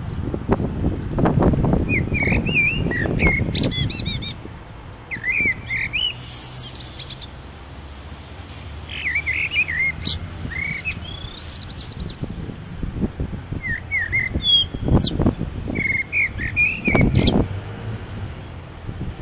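A songbird singing, repeating short chirpy, warbling phrases with pauses between them. Low rumbling noise fills the first few seconds and comes back twice near the end.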